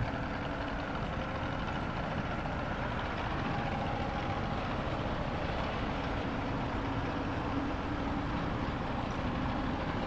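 Tractor engine running steadily, turning a wheat thresher through its PTO shaft, with the thresher's machinery running along with it.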